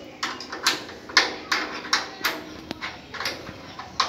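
Sharp, irregular knocks and clicks, about two or three a second, from a thappattai frame drum being handled while its metal tension bolts are fitted and tightened, some knocks leaving a short ring from the drum.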